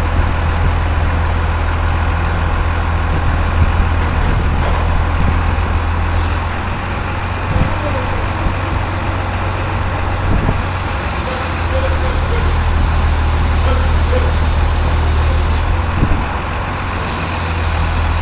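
Industrial washing machine running: a loud, steady low mechanical hum with a few brief knocks.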